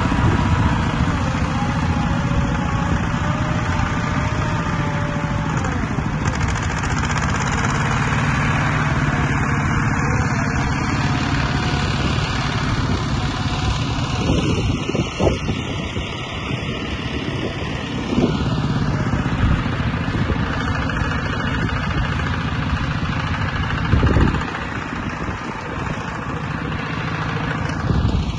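Heavy machinery engine running steadily, with a few short thumps partway through, the loudest about 24 seconds in.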